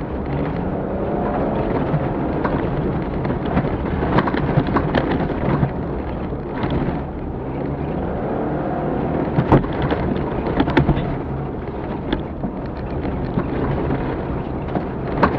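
Off-road rally car's engine running under load as it drives over rough ground, heard inside the cabin, with a steady rumble, rising and falling engine pitch and scattered sharp knocks and rattles from the bumpy track.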